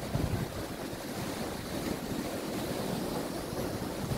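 Sea surf washing and breaking over rocks in a steady wash of noise, with wind rumbling on the microphone.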